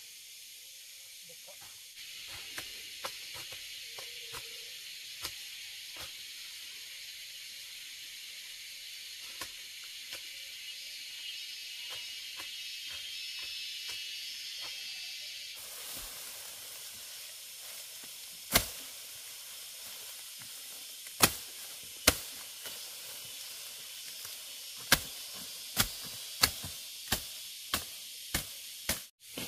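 Tall elephant grass being cut by hand with a blade: sharp chops on the stalks, a few at first, then about one to two a second in the last few seconds, over a steady high hiss.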